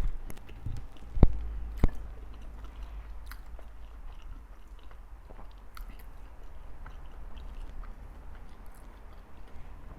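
Close-miked eating: chewing and biting with small wet mouth clicks. Two sharp knocks sound about a second and two seconds in.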